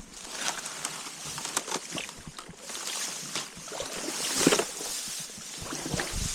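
Slushy creek ice crunching and water sloshing in irregular bursts, loudest about four and a half seconds in.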